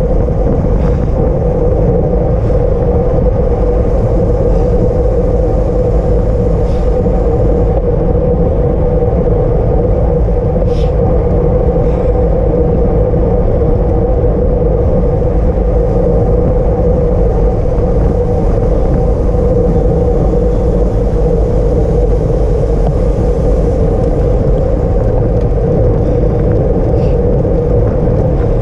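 Steady, loud rush of wind and road noise on a camera riding with a road bicycle at race speed, with a few faint clicks.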